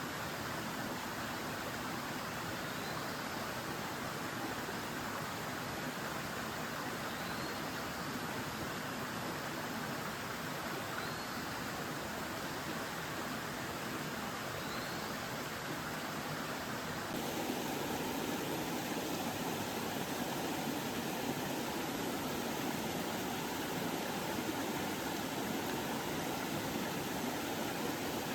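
Steady rush of a flowing mountain stream. About two-thirds of the way through the sound shifts and becomes lower and fuller. Faint short high chirps come about every four seconds in the first half.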